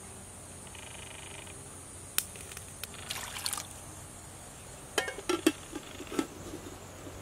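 Fish broth bubbling in a stainless steel pot with a few soft pops, then a cluster of sharp metal clinks from about five seconds in as the steel lid is set on the pot.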